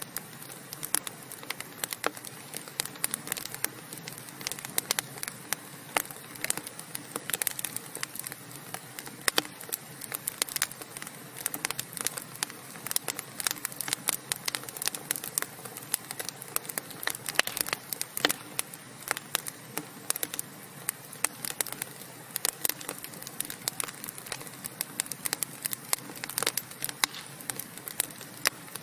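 Burning wood fire crackling steadily: a soft hiss under a constant scatter of sharp, irregular pops and snaps from the logs.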